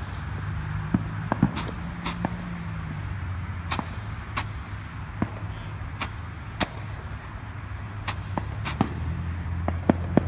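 Fireworks going off: a dozen or so sharp pops at irregular intervals, over a steady low hum.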